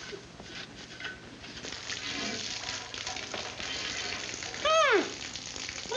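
A steady hissing, sizzling noise builds through the middle. It is cut near the end by a loud, high whoop that glides up and falls back down.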